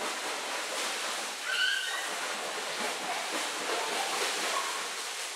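Steady splashing of a swimmer's flutter kick as he kicks along with a hand float in a swimming pool. A brief high-pitched voice cuts in about one and a half seconds in.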